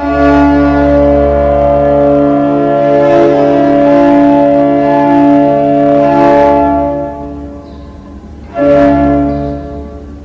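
Orchestral film score holding a loud, sustained chord over a deep bass note, which fades about seven seconds in; near the end a second chord is struck and dies away.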